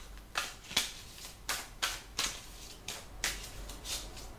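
A tarot card deck being shuffled and handled by hand: a series of short, crisp card swishes and flicks, roughly two a second and irregularly spaced.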